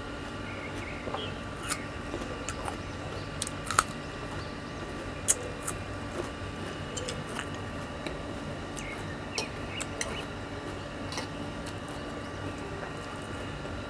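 A person chewing crunchy food close to the microphone, with scattered sharp crunches and mouth clicks; the loudest come about four and five seconds in.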